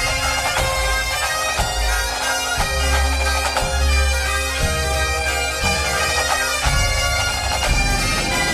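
Background music: a bagpipe tune over a steady drone.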